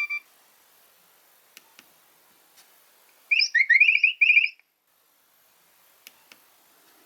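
Nokia 3100 mobile phone playing a short ringtone: a burst of quick, chirping, warbling beeps lasting just over a second, about three seconds in. The tail of the previous ringtone cuts off right at the start, and a few faint clicks come before and after the burst.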